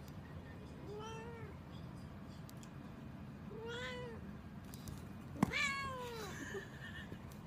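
Domestic cat meowing three times, each meow rising then falling in pitch; the third, near the end, is the loudest and comes just after a sharp click.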